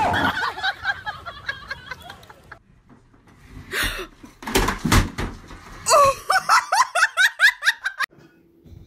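A person laughing, ending in a long run of quick repeated laughs; a few sharp knocks about halfway.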